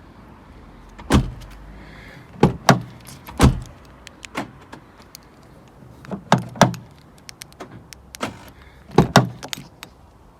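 Sharp clunks and knocks from work on a car door, about ten in all at uneven spacing, several coming in quick pairs.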